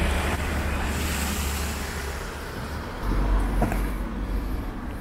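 Wind buffeting the microphone outdoors: a low, unsteady rumble that grows stronger about three seconds in.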